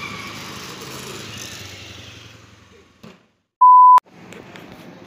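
A low scooter engine running under a steady high tone fades out over the first two and a half seconds. After a click and a moment of silence, a short, loud, pure beep like an edited-in bleep sounds for under half a second, the loudest sound, about three and a half seconds in.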